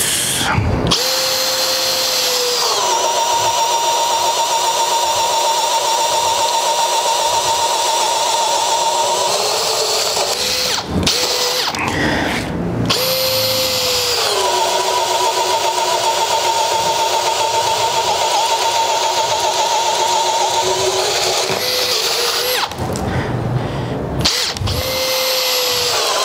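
Makita HP001G 40V brushless hammer drill in drill mode at speed 1, boring with a 2 1/8-inch bit. The motor spins up, its note drops and holds steady for several seconds, then stops. This happens twice, and the drill spins up again near the end.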